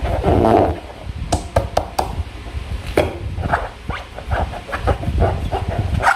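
Slime being squeezed and worked by hand, wet and sticky. It starts with a dense crackling squelch, then gives a few sharp sticky clicks, then a run of short squelches near the end.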